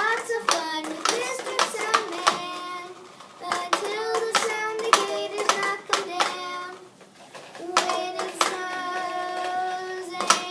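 A child's voice making drawn-out, wordless sung noises: long held and sliding notes in three stretches, with sharp clicks scattered through.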